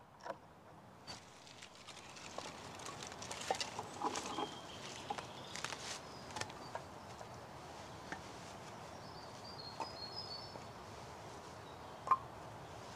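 Cut logs knocking and clattering together as an armful of firewood is carried and handled, with footsteps in leaf litter. There is one sharper knock near the end as the logs are set down on the pile.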